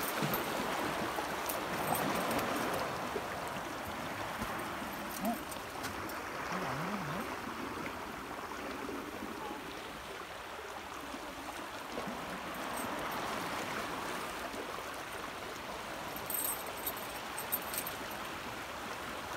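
Small waves washing against the shore rocks and trickling back off them: a steady watery rush that swells and eases slowly.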